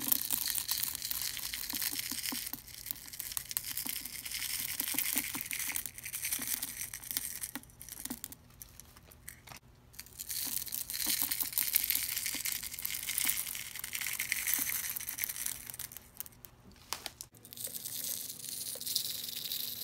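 Small blue goldstone stones pouring from a plastic cup into liquid resin: a dense crackling rattle of many small clicks, in several runs with short breaks between.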